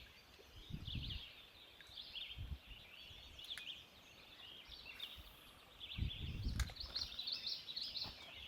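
Birds chirping and calling continually in quick, high twittering runs, with a few low rumbles of wind or handling noise on the microphone.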